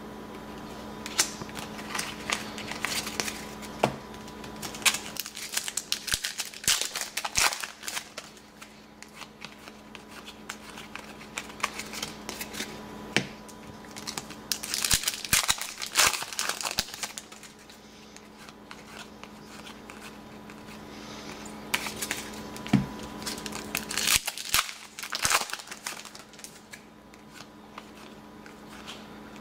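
Trading-card pack wrapper crinkling and cards rustling and clicking as they are handled and flipped through by hand, in scattered bouts, over a faint steady hum.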